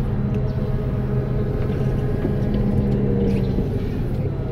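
Combine harvester engine running steadily as the machine drives, heard from inside the cab as a continuous low drone with a steady hum.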